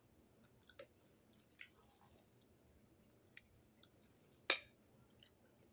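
Faint, wet mouth clicks of someone eating ramen noodles, a few scattered ticks with one sharper click about four and a half seconds in.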